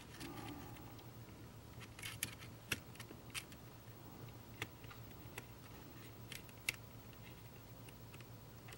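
A dozen or so faint, light clicks and ticks, irregularly spaced, from small metal parts and the plastic shell of a model passenger car being handled, over a low steady hum.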